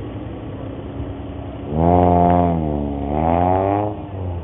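Car engine ticking over, then revved hard for about two seconds: the pitch sags, climbs again and drops off near the end.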